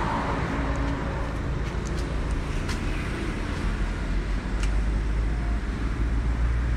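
Steady low outdoor rumble with a few faint short clicks.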